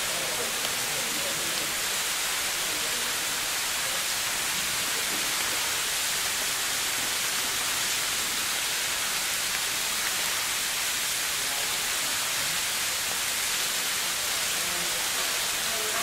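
Steady, even hiss of outdoor noise, strongest in the high range, with no distinct events.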